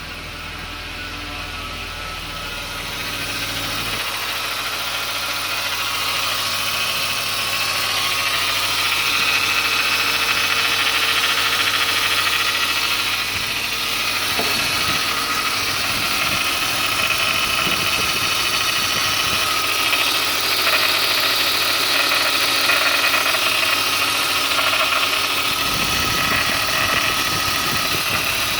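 BMW 528i E39 2.8-litre straight-six engine idling steadily, with a steady whirring held over the engine note: the strange engine noise the owner is trying to show, its cause not identified. It grows louder over the first several seconds, then holds steady.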